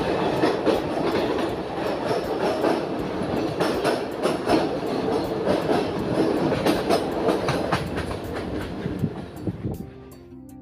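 Indian Railways passenger train running at speed, heard through the coach window: steady rumble of the wheels with clickety-clack over the rail joints. Near the end the train noise fades out and soft background music takes over.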